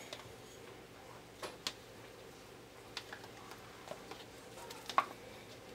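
A handful of faint, sharp clicks and taps from a plastic pitcher and utensils being handled, spaced a second or so apart, the loudest about five seconds in.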